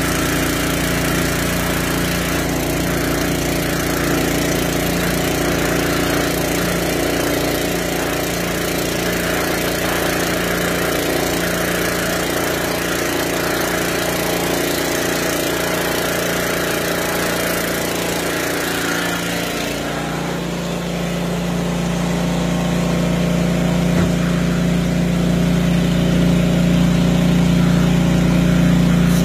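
Small engine-driven water pump running steadily under load, pumping water through a hose into a 1000-litre IBC tank, with water rushing from the hose outlet. The rushing hiss drops away about two-thirds of the way through while the engine carries on.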